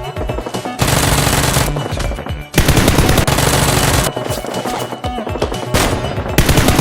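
Rapid automatic gunfire in long bursts, loudest from about one second in to about four seconds in, over background music.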